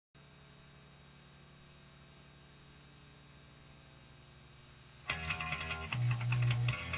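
Steady faint hum and hiss for about five seconds, then guitar music starts abruptly and carries on at a much higher level.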